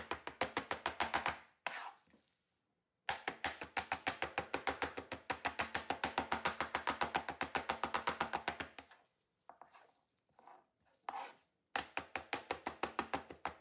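Raw salmon being minced with a chef's knife on a plastic cutting board: fast, even chopping strokes, about five a second, in runs broken by short pauses.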